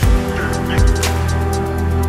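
Background music: an electronic track with sustained chords, a deep kick drum and ticking hi-hats.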